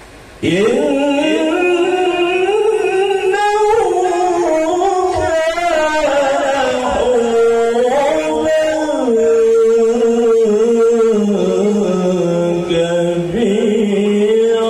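A man reciting Qur'an verses in the melodic qiroah style into a handheld microphone. One long sung phrase starts abruptly about half a second in and is held on drawn-out notes with quick trilling ornaments, settling lower in pitch in the second half.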